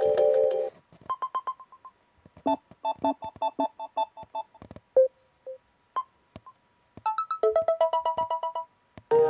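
A string of short electronic phone ringtones and alert tones played one after another: a quick run of repeated high beeps, a fast beeping melody, a few single blips, then another rapid beeping melody.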